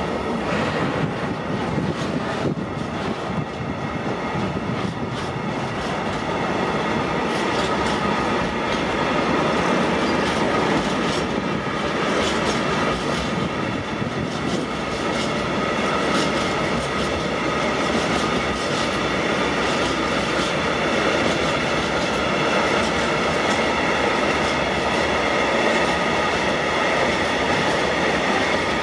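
A train passing, the wheels clicking over the rails and a steady high squeal from the wheels, continuing loud throughout and growing a little louder after the first few seconds.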